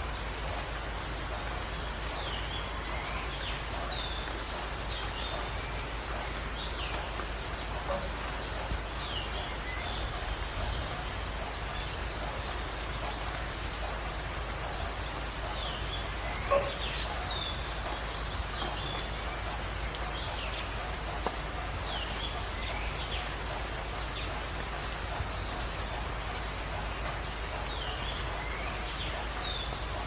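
Steady rushing of water cascading over rocks, with songbirds calling over it: a short, high, fast trill every few seconds and quick downward chirps in between.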